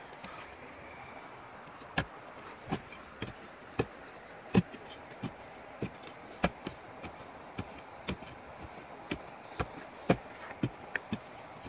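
A hand digging tool chopping again and again into soil and tree roots to cut a root free: short, sharp strikes, starting about two seconds in and then coming roughly every half second.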